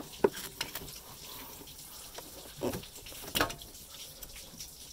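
Hands working among the hoses and parts in a truck's engine bay: a low rustling of handling noise with a few sharp clicks and knocks, two right at the start and another about three and a half seconds in.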